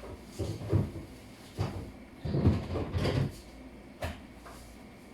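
Several dull knocks and clunks of kitchen things being handled, bunched together near the middle.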